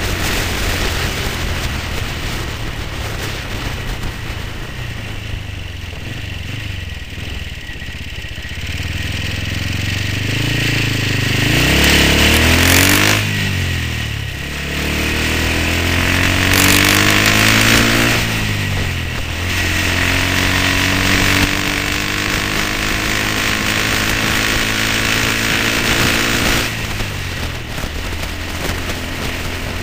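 1970 BSA Starfire B25's 250cc single-cylinder four-stroke engine under way. It runs steadily at first, then pulls hard through the gears, its pitch rising and dropping sharply at each of several gear changes, with wind and road noise around it.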